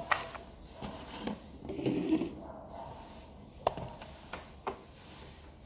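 Handling noise from a small plastic radio and its cable: several sharp clicks and knocks with rubbing between them, and a short muffled rustle about two seconds in.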